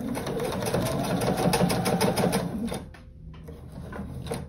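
Sewing machine stitching a short seam through the binding, a rapid even run of stitches that stops about three seconds in.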